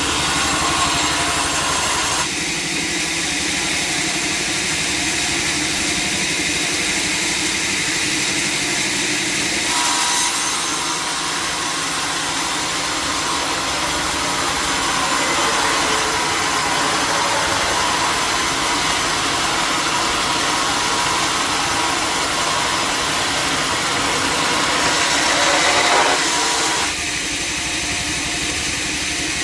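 Sawmill saw and its engine running steadily. From about ten seconds in until near the end, the sound thickens as the blade cuts through a log.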